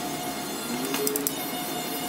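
Light clicks and taps of metal tweezers against the phone's internal parts, with a cluster of quick ticks about a second in, over a steady background hiss.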